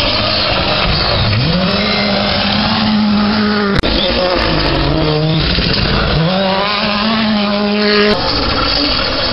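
Rally car engine at full throttle on a gravel stage, its pitch climbing hard and then dropping back at each gear change, over and over.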